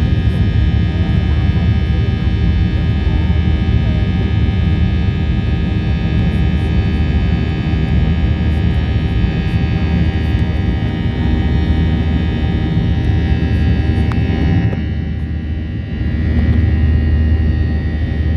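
Cabin noise inside a Boeing 737-800 in flight: the steady rumble of its CFM56-7B turbofan engines with a layered high whine, briefly quieter about fifteen seconds in.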